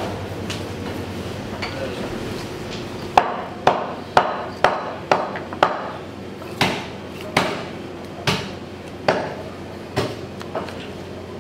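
Butcher's knife striking a cutting board while beef is cut into cubes: sharp knocks, roughly one every half second to a second, with quick runs in the middle.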